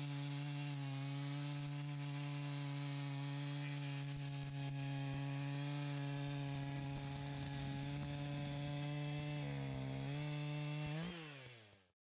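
Echo CS-590 Timberwolf two-stroke chainsaw running at full throttle while cutting through a large log, its engine note holding a steady pitch under load. Near the end the pitch climbs, then the sound fades out.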